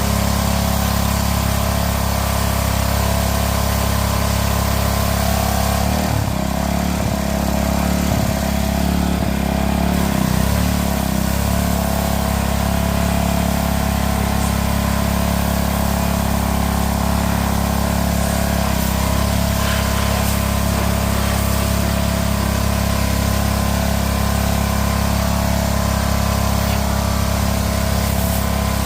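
Gasoline engine of a Craftsman pressure washer (Intech 206) running steadily. Its note wavers briefly about six to ten seconds in.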